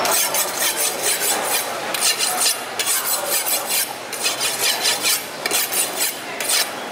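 A large curved fish knife being sharpened on a whetstone: quick back-and-forth scraping strokes of steel on stone, about two a second.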